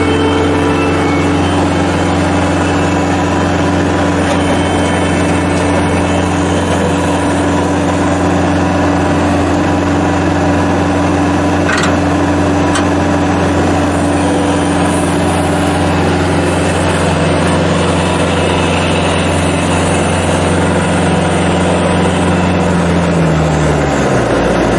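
Bobcat T190 skid steer's diesel engine running steadily at high revs, then throttling down near the end with its pitch falling. A single sharp click about twelve seconds in.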